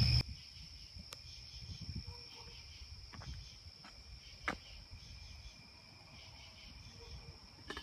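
Crickets chirping steadily in a high, even trill, with a few faint sharp clicks, the loudest about four and a half seconds in.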